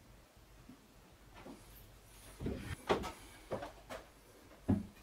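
Chipboard panels bumping and knocking against each other as a panel is fitted into a wooden cabinet box: a handful of short, dull wooden knocks in the second half, two of them louder than the rest.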